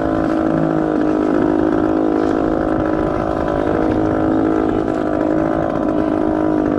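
Small engine running steadily at one constant speed, a dense even hum that does not change.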